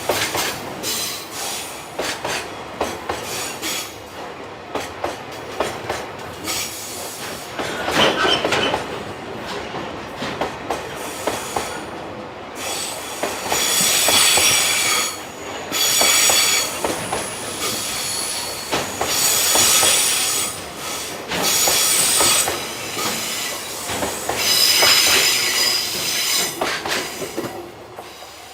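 A freight train rolling past with its wheels clicking over rail joints. In the second half, high-pitched wheel flange squeal comes and goes several times.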